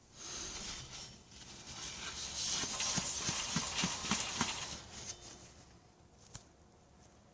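2007 Hyundai Accent rear wheel hub, brake drum off, spinning with a rhythmic clicking that swells and then dies away as it slows, followed by one sharp click near the end. The owner suspects a bad wheel bearing, although the hub spins freely without play.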